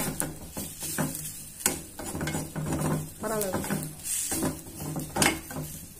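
Metal spatula scraping and stirring in a black kadai in repeated short strokes, sautéing onion and tomato with freshly added masala powders that sizzle in the oil.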